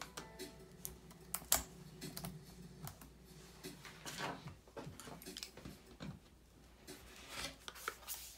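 Scattered light clicks and taps of a pry tool and fingers on a MacBook Air's battery connector and aluminium case as the battery is disconnected, with one sharper click about one and a half seconds in. Near the end the laptop is turned around on the wooden bench with a few knocks.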